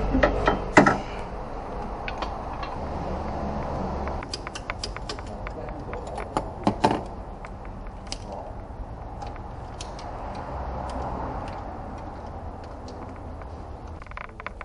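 Metal clanks, knocks and rattles of workshop tools and a steel engine support bar being handled over a car's engine bay, with the loudest clanks about a second in and twice around six to seven seconds in, over a steady low hum.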